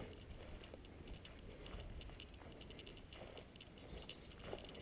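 Near silence: faint outdoor background with a few soft, scattered ticks.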